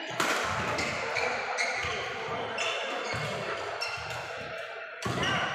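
Badminton hall sounds: scattered sharp racket strikes on shuttlecocks and short squeaks of shoes on the wooden court floor, echoing in a large hall, with a louder hit about five seconds in.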